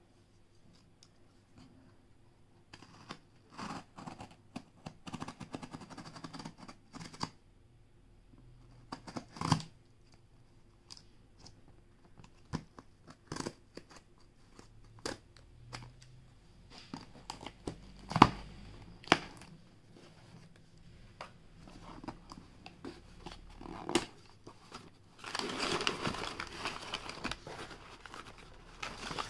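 A cardboard shipping box being cut and opened by hand: scattered clicks, scrapes and sharp knocks on the cardboard and tape, the loudest knock about two-thirds of the way in. Near the end comes a stretch of tearing and crinkling as the flaps are pulled open and the packing inside is handled.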